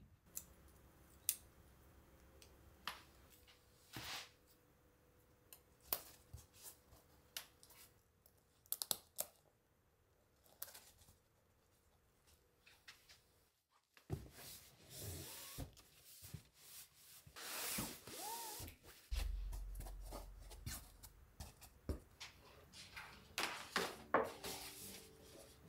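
Quiet handling noises: scattered soft clicks and rustles in the first half. In the second half comes a longer run of louder paper rustling and crinkling from a paper shopping bag being handled.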